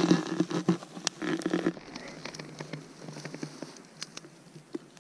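Knife cutting a bar of frozen salo (cured pork fat) on a wooden log round. A low creak as the blade works through the hard fat comes in the first second or two, then lighter scattered clicks of the knife against the fat and the wood.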